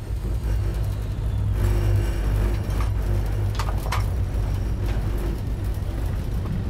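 Steady low rumble and hum inside the cab of a century-old class 1099 narrow-gauge electric locomotive as it gets under way. Two sharp clicks come about three and a half to four seconds in.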